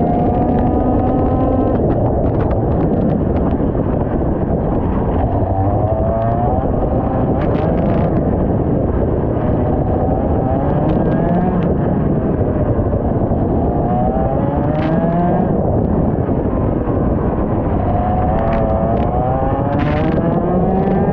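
IAME X30 125cc two-stroke kart engine heard onboard at racing speed, its pitch rising repeatedly under acceleration and dropping off into the corners, over heavy rushing noise.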